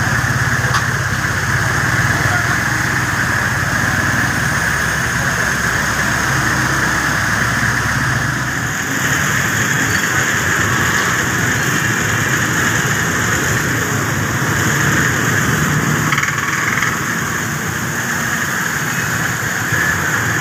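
Motorcycle and motorcycle-rickshaw engines running as they ride through a flooded street, over a steady high hiss. The low engine hum drops away about eight or nine seconds in, leaving mostly the hiss.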